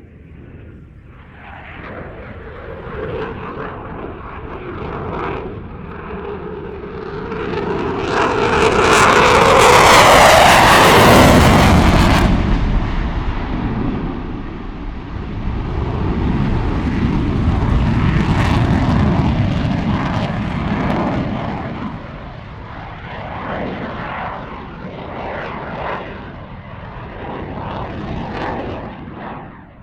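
Display aircraft flying low past the crowd, its engine sound swelling to a loud pass with a falling pitch about ten seconds in. It swells again a few seconds later and then eases off as the aircraft turns away.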